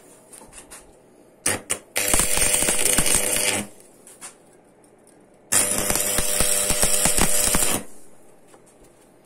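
Electric arc welding: two runs of loud, dense arc crackle of about two seconds each, with a steady electrical hum underneath. A couple of short crackles strike the arc just before the first run.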